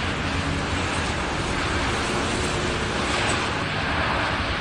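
Storm wind and heavy surf breaking against a rock breakwater: a steady rushing noise with a deep rumble of wind buffeting the microphone.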